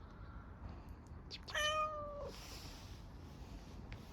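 A hungry stray cat meowing once for food: a single meow of just under a second, held at a level pitch and then dropping at the end.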